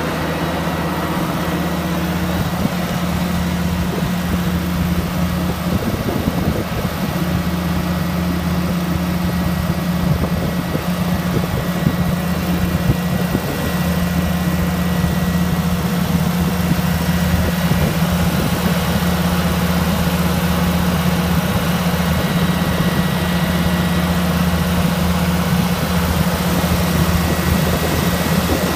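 LeRoi wellhead gas compressor running steadily: a continuous low, engine-like drone with a thin, steady high whine on top.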